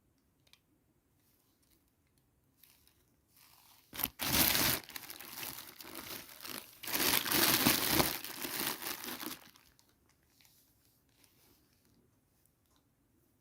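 Packaging being crinkled and torn open by hand: faint handling at first, then loud crinkling from about four seconds in until nearly ten seconds, fading back to faint handling.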